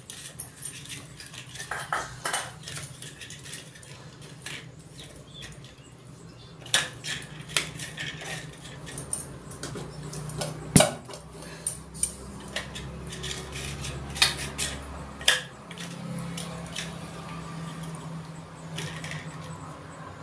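Stainless-steel dishes clinking and clattering as food is served: a steel bowl used as a lid is lifted off a steel pot and bowls are handled and set down. There are scattered light clinks and one sharp clank about halfway through.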